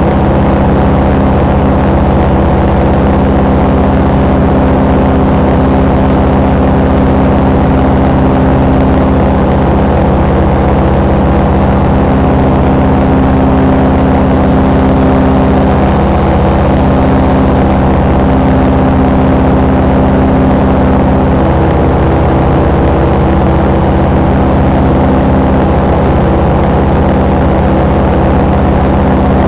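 FB 122 paramotor engine running loud and steady in flight, with a constant pitch that shifts only slightly now and then.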